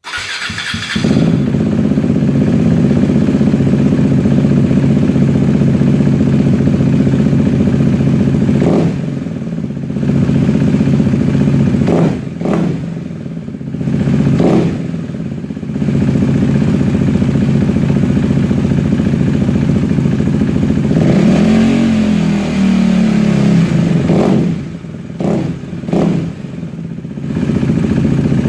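Husqvarna Svartpilen 401's single-cylinder four-stroke engine running through a LeoVince LV-10 slip-on silencer, idling with a few quick throttle blips and one longer rev about twenty-two seconds in.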